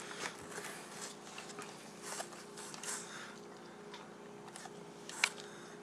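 Faint handling noises: soft scattered rustles and taps, with one sharp click a little past five seconds in, over a low steady hum.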